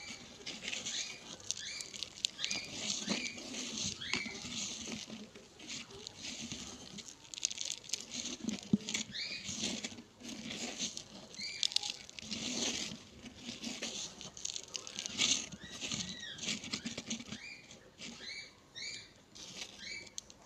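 Crushed slate pencil grit crunching, crackling and scraping against a bowl as a hand rolls and presses balls of the powder. A dense gritty crackle with many short high squeaks and a few soft thuds.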